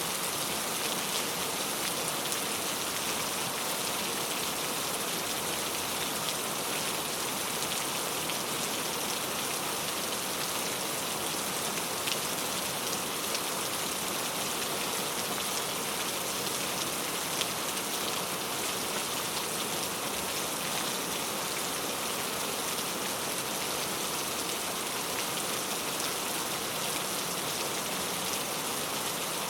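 Very heavy rain falling steadily, a dense even hiss with countless fine drop impacts.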